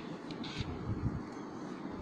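Faint steady background hiss with a few soft, low bumps about half a second to a second in, from hands handling a plush toy.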